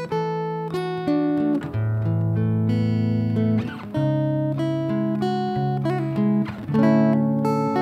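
Solo acoustic guitar playing an instrumental passage: plucked notes left to ring over bass notes that change every second or so.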